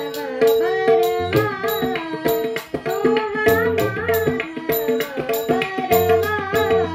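Young girl's voice singing a Marathi devotional bhajan melody, accompanied by tabla. The tabla strokes keep a steady rhythm, the right-hand drum ringing on a tuned note under the voice.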